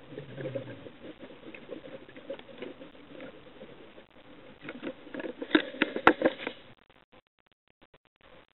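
Irregular crackling and clicking heard underwater, with a louder cluster of sharp clicks a little past halfway, then it goes almost quiet.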